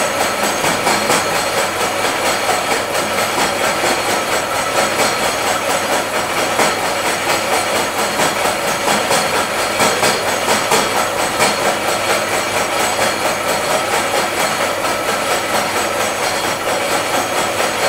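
Knee-type milling machine surface-milling a metal workpiece: a steady metal-cutting noise with a fast, even clatter of the cutter teeth.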